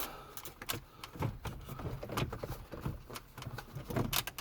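Plastic dash trim panel being handled and shifted, with irregular light clicks and knocks several times a second.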